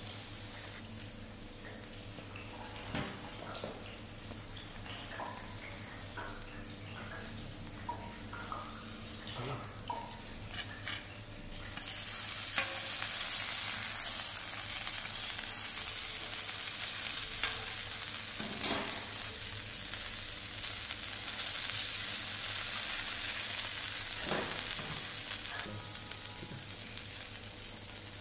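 Butter, mushrooms and burger buns sizzling on a hot ridged flat-top griddle, with scattered knocks and scrapes of a metal spatula. The sizzle grows much louder about twelve seconds in and eases a little near the end.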